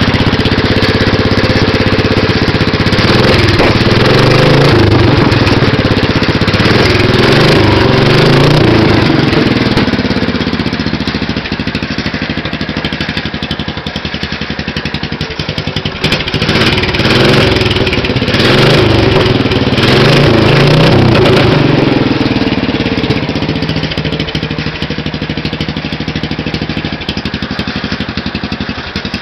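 Racing lawn mower engine running loud through a newly fitted header exhaust pipe, revved up and down repeatedly in two spells and dropping back to idle between them and for the last several seconds.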